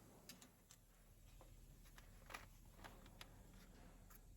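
Near silence, with a few faint, light clicks scattered through it.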